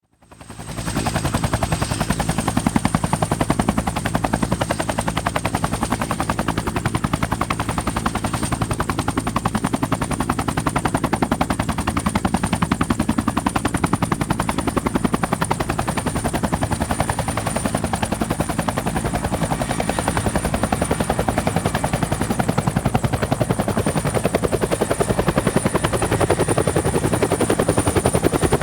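Bell 212 helicopter running on the ground, its twin turbine engines giving a steady high whine over the rapid, even chop of the two-bladed main rotor. The sound fades in at the start and grows slightly louder near the end.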